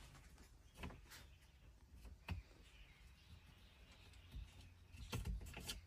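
Faint handling sounds: a few light clicks and knocks as the lower cover is slid off a truck's gear shifter.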